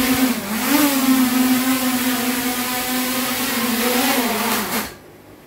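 Small FPV quadcopter's brushless motors and propellers running with a steady, loud whine, its pitch wobbling briefly about half a second in. The pitch sags slightly and then the motors cut off abruptly near the end.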